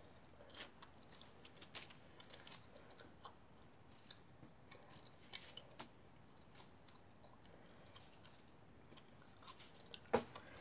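Faint scattered clicks and light rustles from a yellow toy Slinky being dangled and bounced by hand, its coils knocking together, with a slightly sharper click near the end.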